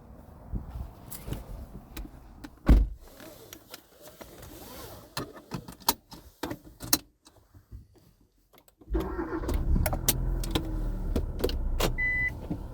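Clicks and rattles inside a car, with a single loud thump about three seconds in. About nine seconds in the car's engine starts and runs steadily, and a short beep sounds near the end.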